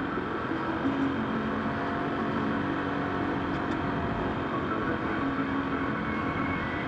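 Car cabin while driving: steady road and engine noise.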